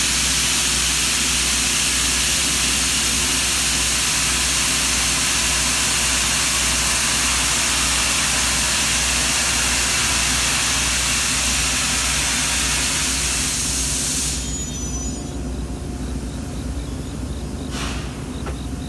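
A train's loud steady hiss over a low steady hum. The hiss cuts off suddenly about fourteen seconds in, leaving the hum, with a sharp knock near the end.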